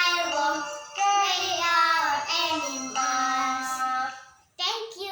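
A young girl singing solo, holding long notes that slide in pitch. The voice stops briefly near the end, then sings one more short phrase.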